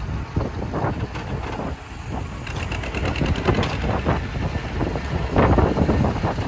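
Wind buffeting the microphone over a steady low rumble, with a rapid rattle for about a second and a half in the middle.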